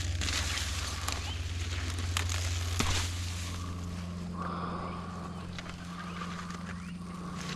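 A man breathing hard, with the rustling of plants being pulled up, over a steady low hum.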